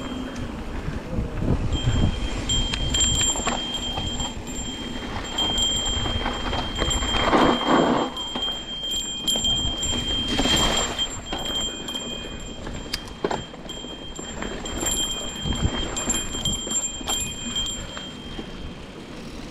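A small bell on the mountain bike ringing continuously as the ride shakes it, one steady ringing note with brief breaks. Underneath are rumbling wind and trail noise on the microphone, with two louder rushes of noise about 7 and 10 seconds in.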